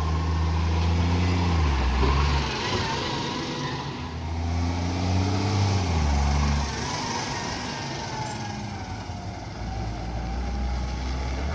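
Recycling garbage truck's diesel engine revving up twice for a couple of seconds each time, then dropping back to a steady idle, running with an exhaust leak.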